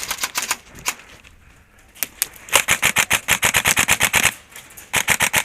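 Airsoft guns firing in rapid full-auto bursts of sharp clicking shots. A short burst comes at the start, a few single shots follow, then a long burst of about two seconds and another burst near the end.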